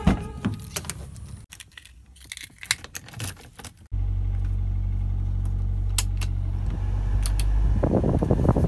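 A car door handle clicks open, followed by keys jangling and scattered light clicks. About four seconds in, the steady low drone of the car's engine idling heard inside the cabin takes over, with a few button clicks on the car stereo and music from the radio starting near the end.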